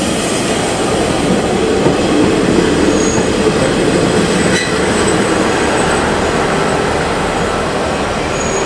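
JR KiHa 40 series diesel railcar running close past along a station platform, with steady wheel-on-rail and diesel engine noise and a faint steady hum. Brief thin high squeals come about three seconds in and again near the end.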